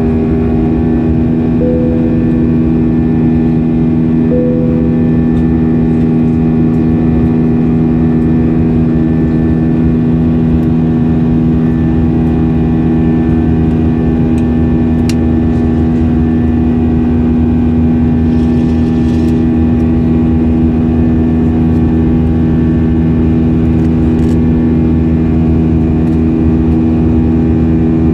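Cabin noise of an Airbus A320-232 in flight: the steady sound of its IAE V2500 turbofan engines and the airflow, with a low hum of several steady pitches under it.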